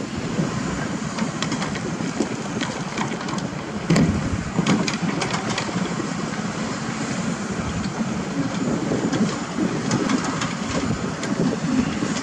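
Diesel engines of a hydraulic excavator and a dump truck running steadily, with a scatter of knocks and clanks, the loudest about four seconds in.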